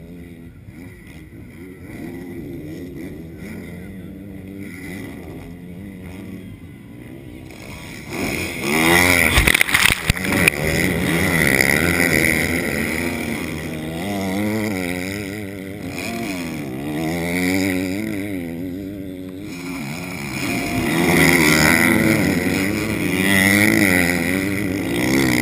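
Motocross bikes' engines revving hard as they pass on the dirt track, their pitch rising and falling with throttle and gear changes. They are fainter for the first several seconds, then loud from about eight seconds in, swelling again each time a bike comes by, with a brief louder burst about ten seconds in.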